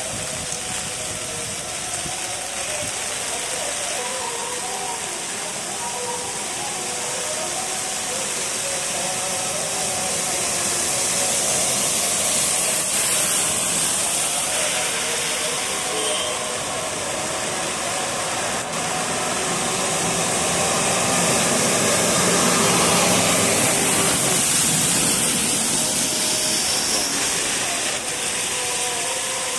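Heavy rain falling, with rainwater running in a sheet across a flooded road, a steady rushing hiss that swells a little past the middle. Faint pitched sounds sit underneath it.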